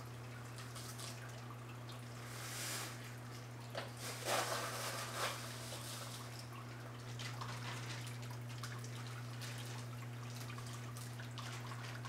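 Water dripping and trickling over a steady low hum, with a cluster of louder brief bursts about four to five seconds in.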